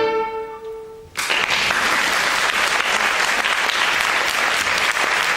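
The ensemble's last held chord rings out and fades over about a second, then audience applause breaks out suddenly and continues.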